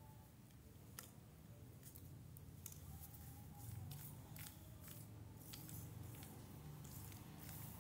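Faint, irregular light clicks and taps of cardboard jigsaw puzzle pieces being handled and fitted, growing more frequent partway through, over a low steady hum.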